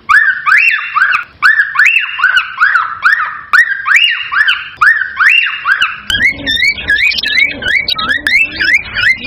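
Cockatiel calling: a steady string of short, rising whistled calls, about two a second. About six seconds in, the calls change to a quicker, different phrase with lower sounds underneath.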